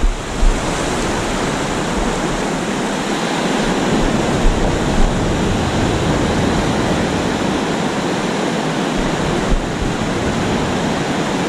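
Surf washing up a sandy beach, a steady rushing hiss, with wind gusts rumbling on the microphone a few times.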